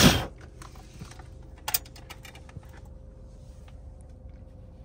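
A hard breath blowing out a candle at the very start, then light clicks and rattles of a metal candle lantern being handled, with one sharper click a little under two seconds in. A faint steady hum runs underneath.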